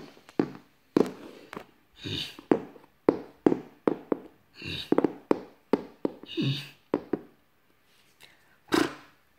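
Plastic toy horse figure tapped along a wooden floor, its hooves knocking on the boards in a walking rhythm of about two to three knocks a second. A few short breathy puffs made by mouth, horse noises, come in between.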